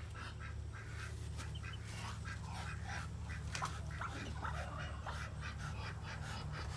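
A mother duck and her newly hatched ducklings calling: a scatter of short calls and soft quacks.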